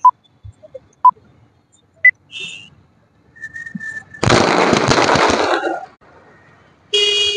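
A string of small firecrackers (a ladi) going off about four seconds in, a rapid, dense crackle of many small bangs lasting about a second and a half.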